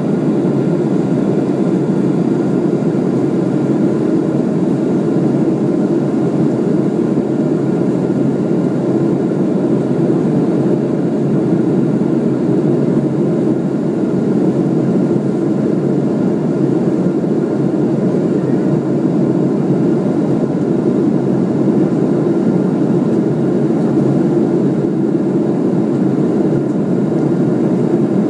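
Steady drone of an aircraft in flight, engine and airflow noise heard from inside the cabin, with a faint steady whine above it.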